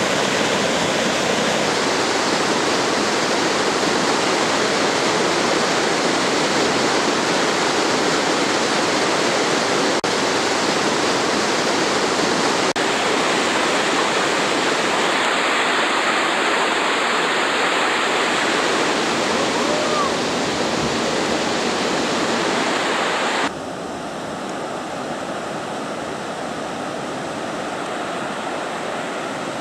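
Fast-flowing whitewater river rushing in a dense, steady wash of noise, which drops abruptly to a quieter level about 23 seconds in.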